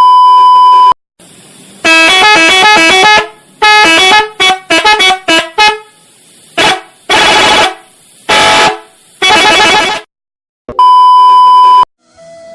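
A one-second 1 kHz censor beep, then a car horn honking a string of notes at different pitches, some long and some short. A second censor beep comes near the end.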